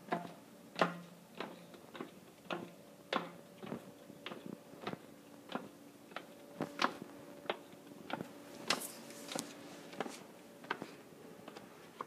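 Footsteps climbing stone stairs: one crisp step about every 0.6 seconds, in an even rhythm. A faint steady hum runs beneath them.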